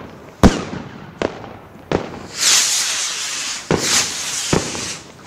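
Aerial fireworks going off: a sharp bang about half a second in, the loudest, two more in the next second and a half, then a long hiss from about halfway, with two more bangs near the end.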